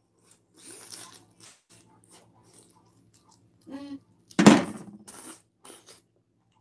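A man eating a bite of pizza: soft chewing and mouth noises with a few light clicks and clinks. There is a brief murmur just before four seconds in and one loud knock about half a second later.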